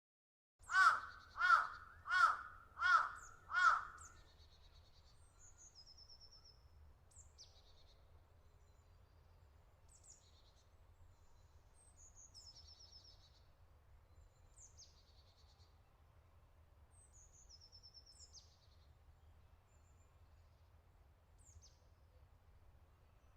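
A large bird calling harshly five times, about one call every 0.7 seconds, followed by small birds chirping now and then over a faint, steady outdoor ambience.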